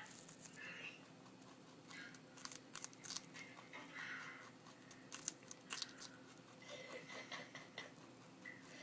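Pet rabbit chewing its food: faint, quick, irregular crunches that come in clusters.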